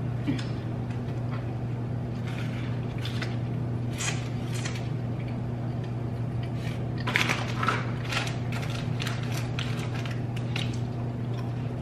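Close-miked chewing of a sandwich bite, with small wet mouth clicks. From about seven seconds in, a plastic packet of apple slices crinkles as it is handled. A steady low hum runs underneath.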